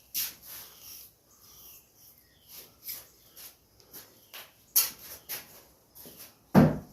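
Repeated short hissing bursts of aerosol penetrating oil being sprayed onto rusty bolts to soak them before removal. Near the end there is a single louder thud.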